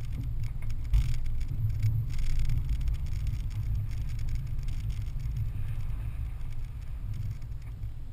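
Toyota 4Runner driving over a rough dirt track: a steady low rumble of engine and tyres with scattered knocks and rattles from bumps.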